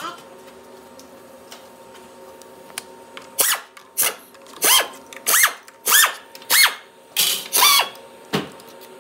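Air ratchet run in about nine short trigger bursts starting some three and a half seconds in, each a whir that rises and falls in pitch as it spins out the transmission's valve body bolts.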